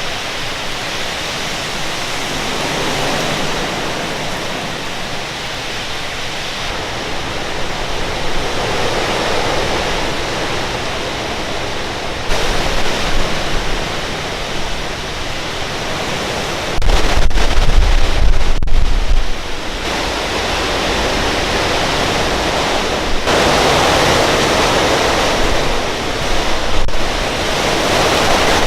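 Hurricane wind and rain: a loud steady rushing that swells and eases in gusts, with heavy wind buffeting on the microphone for a couple of seconds past the middle.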